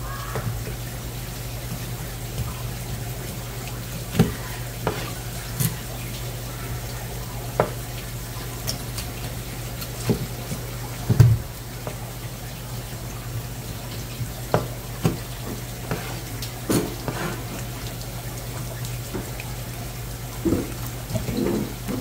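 Tap water running steadily onto a plastic cutting board over a low steady hum, with scattered knocks of the knife and fish against the board. The loudest thump comes about eleven seconds in.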